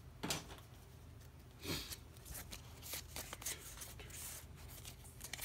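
Trading cards handled and slid against each other by hand: two soft rustles, about a quarter second and a second and a half in, then a run of faint light clicks as the cards are shifted through.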